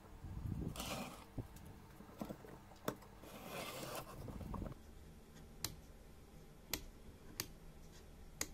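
Wooden parts of a handmade clock model rubbing and scraping as the top piece is pressed onto its wooden posts, followed by several sharp light clicks spaced about a second apart in the second half.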